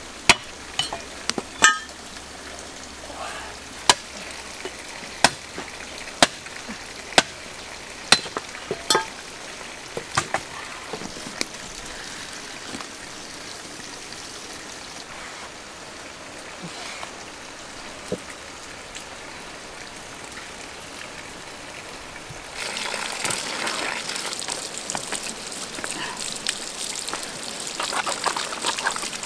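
Dry sticks snapped by hand, a sharp crack about once a second, giving way to a wood fire crackling in a clay stove. After a sudden change about three-quarters of the way through, water pours steadily from a bamboo spout onto catfish in a woven basket.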